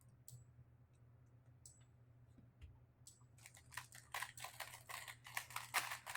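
A 3x3 speedcube being turned: a few scattered clicks, then from about three and a half seconds in a rapid, dense run of plastic turning clicks during a sub-four-second solve.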